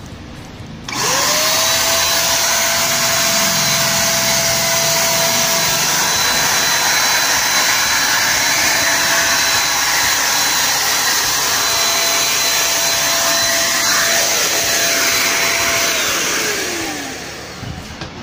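INGCO electric spray gun switching on about a second in, its motor running with a steady whine and hiss, then switching off near the end, the pitch falling as it spins down.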